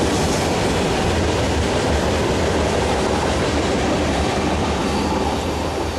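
Freight train cars rolling past on the rails, a steady rumble of wheels with some clickety-clack, easing off slightly near the end as the tail of the train moves away.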